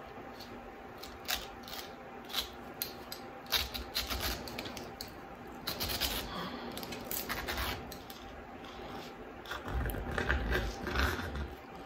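Hand-twisted pineapple corer cutting down through a fresh pineapple: irregular crunching and scraping with scattered sharp clicks, and a run of low thuds and heavier scraping near the end.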